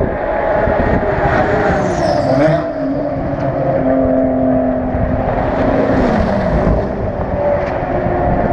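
Race car engines running in the pit lane, with a falling pitch about two seconds in and again about seven seconds in, like cars going by.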